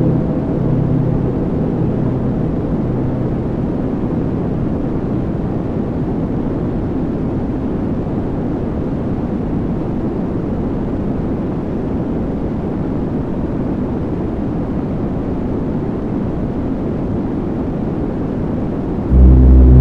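Dense, steady wall of rumbling noise from a drone/noise-music piece, strongest in the low and middle range. About nineteen seconds in it cuts abruptly to a much louder low drone with steady held tones.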